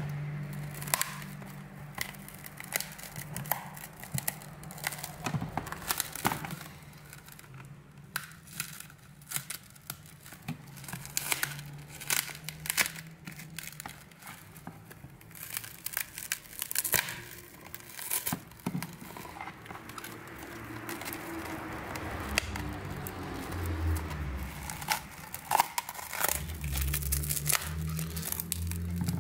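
Cracked tablet screen glass crackling and snapping in many small, irregular sharp clicks as it is pried and pulled loose from the frame by hand.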